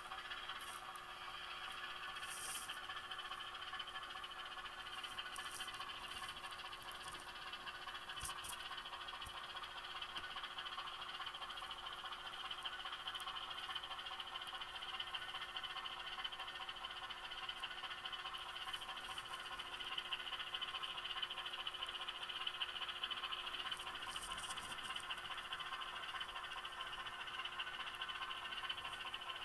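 HO scale model diesel switcher running under a sound decoder, its small onboard speaker giving a steady rattling diesel engine sound, with a few faint clicks from the wheels and track.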